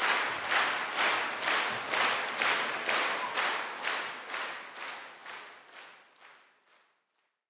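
Circus audience clapping in unison, a little over two claps a second, fading away to nothing over the last few seconds.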